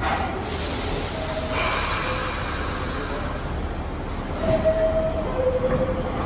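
New York City subway train running through the station, its steady rumble overlaid by several squealing tones that come and go, one dropping to a lower pitch near the end.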